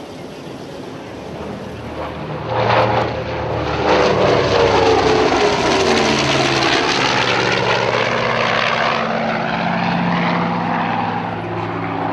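Twin Pratt & Whitney R-2800 radial engines of a Grumman F7F Tigercat making a fast pass: the engine sound builds quickly, drops in pitch as the plane goes by, then eases off as it draws away.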